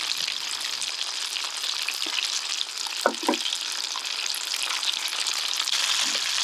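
Chicken karaage deep-frying in oil at 190 °C for the second fry that crisps the surface: a steady sizzle. Two short pitched sounds come about three seconds in.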